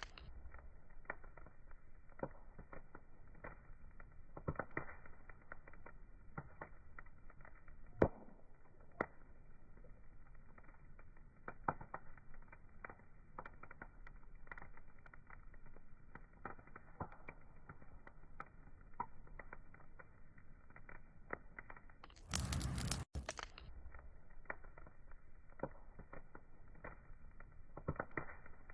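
Wood fire crackling, with irregular small pops and snaps over a soft hiss, a few sharper cracks standing out. About three quarters of the way through, a short, much louder rush of noise lasts under a second.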